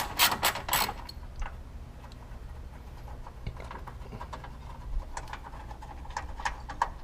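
Ratchet wrench clicking in a quick run in the first second while undoing the radiator bracket bolts, then a few scattered light metallic ticks and taps of tools and hardware.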